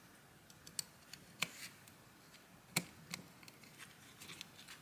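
Small plastic and metal parts of a microwave turntable synchronous motor clicking and tapping as its coil and terminal block are pressed back into the metal housing by hand. A scatter of faint clicks, with two sharper ones near the middle.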